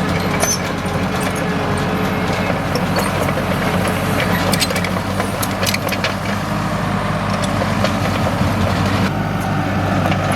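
Komatsu D37EX bulldozer's diesel engine running steadily, with scattered sharp clicks and clanks over it.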